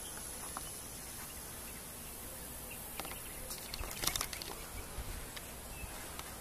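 Quiet outdoor ambience: a steady low hiss, with a cluster of faint clicks and rustles about three to four seconds in.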